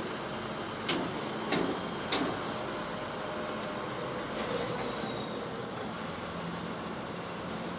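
A Preet 987 combine harvester's diesel engine running as the machine rolls slowly past towing its header trailer. Three sharp metallic clanks come in the first couple of seconds.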